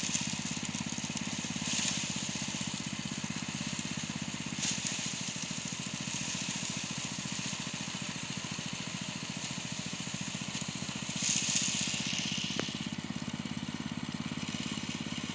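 Small engine of a rice-harvesting machine running steadily at an even speed, with a few short rustling hisses over it.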